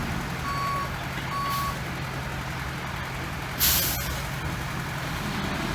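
Dump truck's diesel engine running steadily, its reversing alarm giving two more short beeps in the first two seconds. Then, just past halfway, a short, loud hiss of released air.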